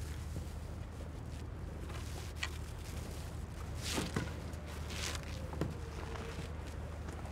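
Scattered rustles, scuffs and clicks of a person handling rope and moving about, the loudest cluster about four seconds in, over a low steady hum.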